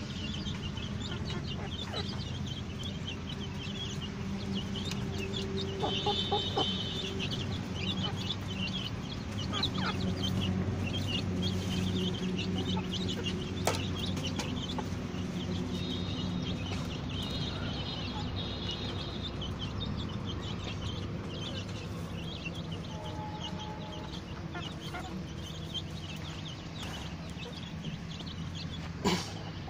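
A flock of chickens calling: many overlapping clucks and high peeps, over a steady low hum. One sharp knock near the end.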